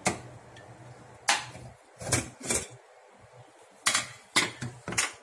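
Stainless steel pressure cooker being opened: the lid is twisted loose and lifted off, giving a series of sharp metal clacks and knocks, about seven, spread across a few seconds.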